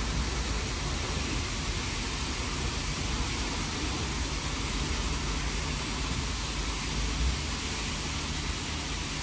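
WashTec SoftCare² Pro rollover car wash spraying active foam and wheel cleaner through its WheelFlash wheel nozzles: a steady hiss of spray over a low rumble.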